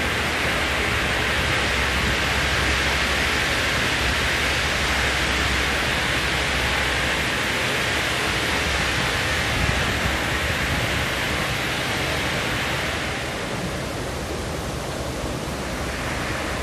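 Steady rushing hiss of pool water spilling over the edge into the deck-level overflow gutter grating, easing off a little near the end.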